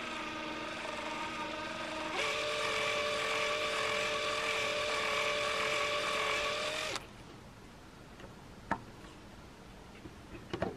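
Electric drill spinning a screw extractor bit against a screw head: a steady motor whine that steps up to a higher speed about two seconds in, runs on and stops about seven seconds in. A few light clicks follow near the end.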